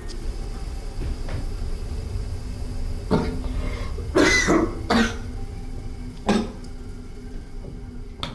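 A man coughing: about five coughs in a cluster near the middle, over a steady low rumble.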